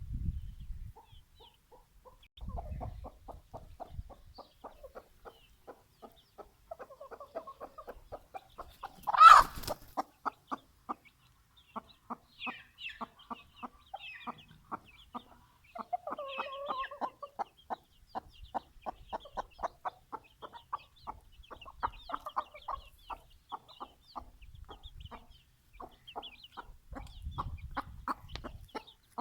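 Young chickens feeding, with a steady run of short, quick clucks and pecking sounds several a second. A few calls stand out, the loudest a sharp squawk about nine seconds in.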